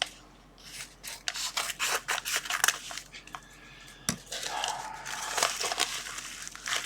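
Scissors cutting open a small parcel, a quick run of snips, then the packaging crinkling and rustling as it is pulled open.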